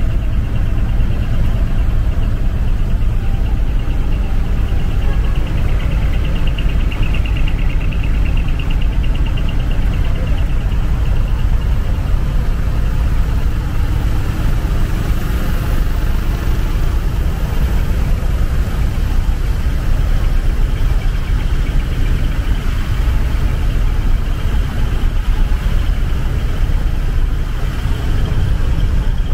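Diesel engines of parked decorated art trucks (dekotora) idling, a steady low rumble.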